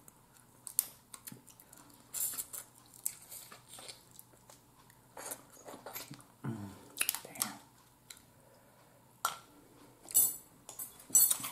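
Blue crab claw shells being cracked and picked apart by hand, with wet chewing of the crab meat: scattered crackles and smacks, the sharpest cluster near the end.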